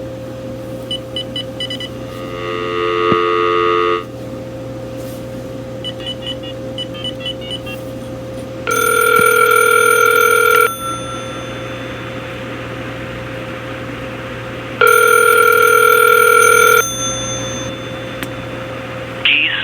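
Electronic ringer of a Uniden EXAI7980 900 MHz cordless phone ringing with an incoming call: three rings of about two seconds each, roughly six seconds apart, the last two louder. Short runs of soft beeps come between the first rings, over a steady hum.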